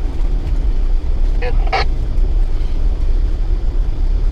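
Mitsubishi Triton ute heard from inside the cab, its engine and drivetrain giving a steady low rumble while crawling over a rough bush track. About a second and a half in come two short, sharper noises.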